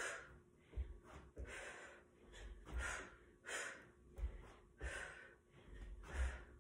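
A woman breathing hard from box jumps, in short heavy breaths about one a second. Dull thuds come as her bare feet land on a cushioned ottoman and the floor.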